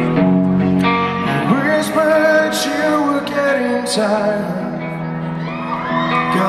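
Live rock band playing a song's instrumental intro: amplified electric guitar over drums, heard through a venue's PA system.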